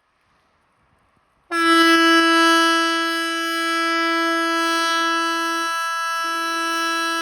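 Swedish 'Hesa Fredrik' civil defense warning siren blasting one loud, steady tone that starts abruptly about a second and a half in. The blast runs about seven seconds, the length of one blast of the 'important message to the public' (VMA) warning signal being tested.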